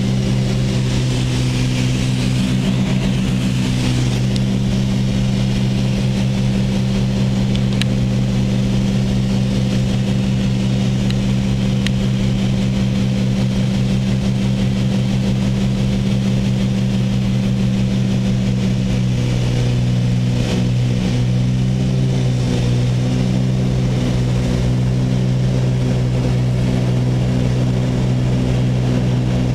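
Twin piston engines and propellers of a Cessna 310 droning steadily, heard from inside the cabin during the approach. The tone shifts slightly about two-thirds of the way through.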